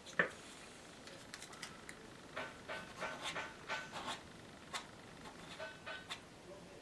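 Soft scratching, rubbing and tapping of fingers working wet paint on watercolour paper, in short irregular strokes, with a sharper tap just after the start and a few faint squeaks.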